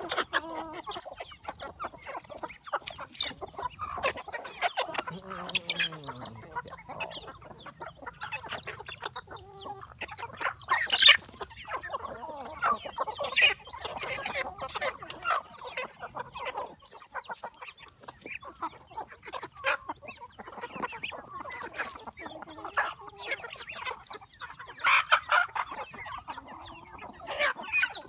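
A flock of chickens clucking and calling over one another, with several louder calls standing out.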